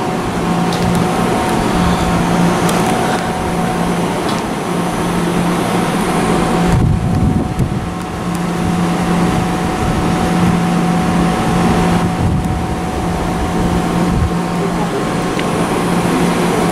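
Amtrak Silver Star passenger train at the platform: a steady mechanical hum and rumble, with a constant higher whine over it and a low droning tone that drops in and out every few seconds.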